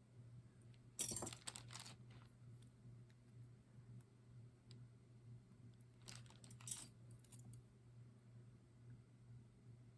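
Small metal brooches clinking and jingling against each other as they are handled, in two short clusters: about a second in and again around six seconds in. A faint steady low hum runs underneath.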